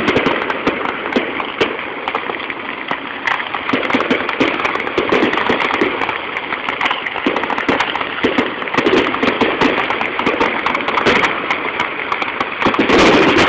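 Fireworks going off in rapid succession: a dense, unbroken crackle of many small pops and bangs, getting louder near the end.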